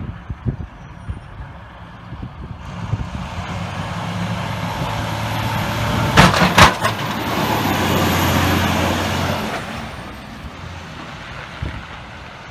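Snowplow truck driving past on a plowing pass: its engine and plow noise swell over a few seconds, then fade away. A quick cluster of sharp bangs comes about six seconds in.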